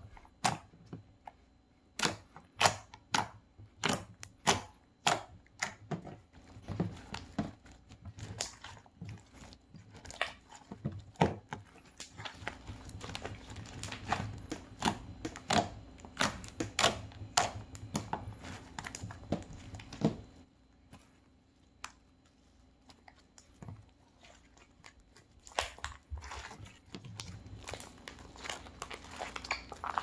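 Clear blue slime being poked, pressed and squeezed by hand, giving a string of sharp wet pops and clicks. The pops come thick and fast through the middle, fall quiet for a few seconds about two-thirds through, then pick up again.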